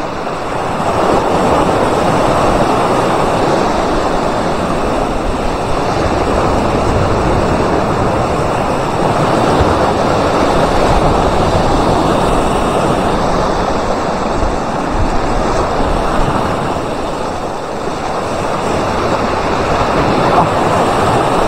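Sea surf washing and breaking over shoreline rocks, a loud, steady rush of water.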